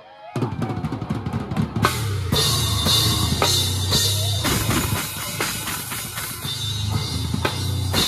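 Drum kit played hard with a live band: after a brief lull the drums come back in about a third of a second in with a fast run of hits, then crash cymbals ring over a steady kick and snare.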